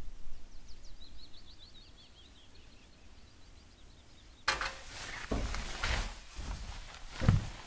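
A small songbird sings a quick run of high chirps that steps downward in pitch. About four and a half seconds in, close footsteps and rustling through forest undergrowth and twigs begin, with one louder thump near the end.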